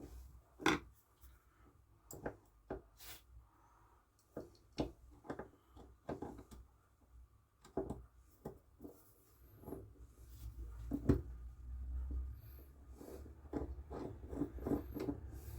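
Small irregular clicks, taps and scrapes of a screwdriver and metal parts being handled as a chainsaw carburetor's metering spring, jet and holding screw are fitted and screwed down. In the second half the clicks come more often, over a low rubbing rumble of handling.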